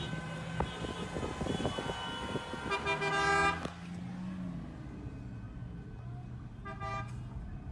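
Car horns honking in street traffic: several horns overlap at different pitches, then one long, loud honk cuts off about three and a half seconds in. A short honk comes near the end, over the low rumble of traffic.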